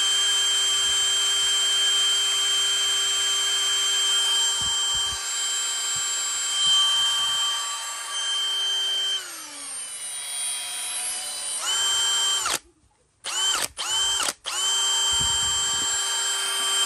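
Ridgid R86116 brushless cordless hammer drill running with no load in high gear, a steady motor-and-gearbox whine. About nine seconds in, the trigger is eased and the pitch drops as the drill slows. It then stops, gives two short blips and runs back up to full speed before stopping again near the end.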